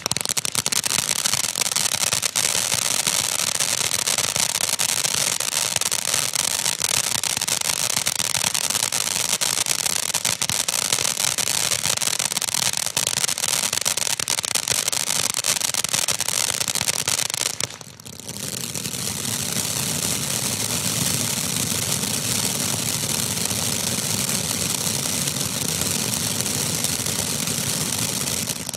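Black Cat Big Cat ground fountain firework spraying sparks: a steady, loud hiss thick with rapid crackling. It drops away briefly about 18 seconds in, then picks up again with a fuller, deeper rush.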